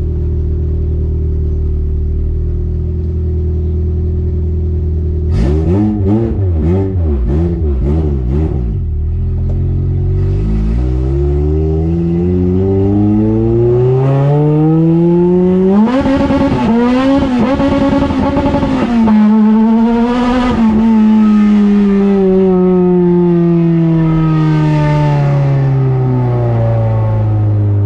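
Car engine running at low revs, then revving up steadily as the car accelerates, holding high revs for a few seconds, and winding down smoothly as it slows.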